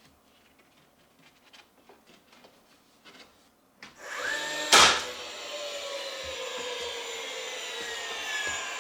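Light handling clicks, then an electric power tool starts about four seconds in and speeds up. A loud sharp burst follows as it bites into the work, and it keeps running with its pitch slowly dropping, as under load.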